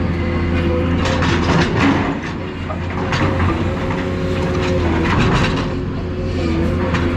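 Heavy scrap-demolition machine working car bodies: its engine and hydraulics run steadily with a whine that shifts slightly in pitch, under irregular metal clanks and crunches.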